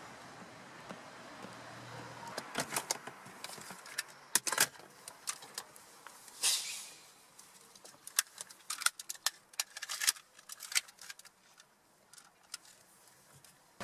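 Someone handling small objects inside a car: a scattered run of sharp clicks and light rattles, with a brief rustling swish about six and a half seconds in.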